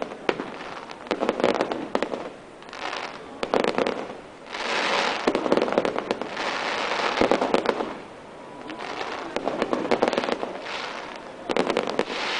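Fireworks display: crackling aerial shells going off one cluster after another, each a rapid string of pops. A longer, continuous crackle and hiss fills the middle.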